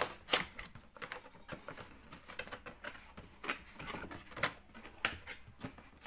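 Cardboard packaging box being opened by hand: an irregular run of short taps, scrapes and clicks as the cardboard flaps and inner box are pulled out.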